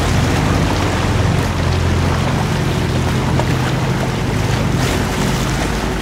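A boat's motor idling with a steady low hum, over a constant rush of wind and water.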